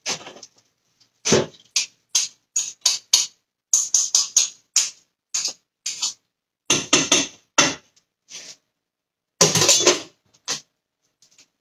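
A run of short, irregular scrapes and clatters of kitchen utensils being handled, with two longer scraping noises about seven and ten seconds in.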